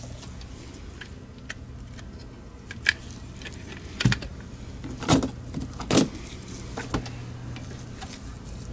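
Sharp plastic clicks and knocks as the shell of a Logitech MX Anywhere 3 mouse is separated and the opened mouse is handled, five or so about a second apart from about three seconds in, over a steady low hum.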